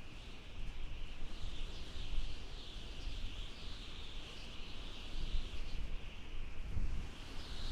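Desert wind howling: a wavering high whistling hiss over low, gusty rumble that rises and falls.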